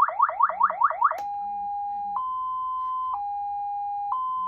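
Electronic police siren through its speaker, turned down to its lowest volume: a fast repeating rising whoop, several a second, then a click about a second in as it switches to a two-tone hi-lo that alternates between two steady pitches about once a second.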